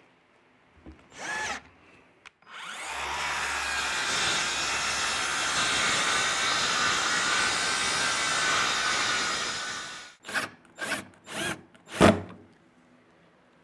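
A short whir of a cordless drill, then a WORX ExacTrack circular saw cutting through a pine board for about seven seconds, trimming an overhanging end. Near the end, a cordless drill-driver runs in several short bursts.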